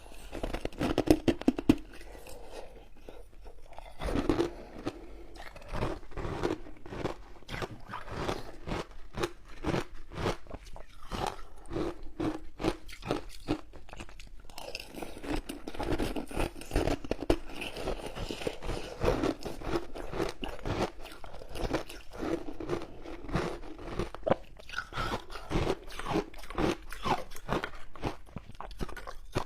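A person biting and chewing frozen shaved ice close to the microphone: dense, irregular crunching throughout, loudest about a second in.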